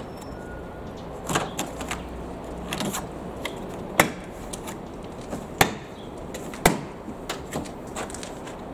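Plastic retaining clips of a 30-series Toyota Alphard/Vellfire back-door trim panel popping loose as the panel is pulled off by hand: a string of sharp clicks and snaps, the loudest three about four, five and a half and six and a half seconds in.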